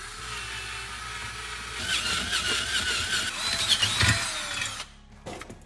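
Cordless drill boring a new hole through a steel lower control arm: a steady motor whine and bit grinding with a wavering pitch. It gets louder about two seconds in as the bit cuts, then stops near the end.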